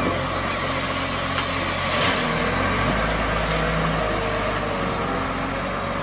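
Volvo wheel loader's diesel engine running steadily as it holds its bucket raised over a truck trailer and tips it, with a high whine over it that stops about four and a half seconds in.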